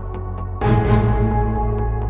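Background music: sustained chords over a deep bass, with a fuller chord and a percussion hit coming in about half a second in.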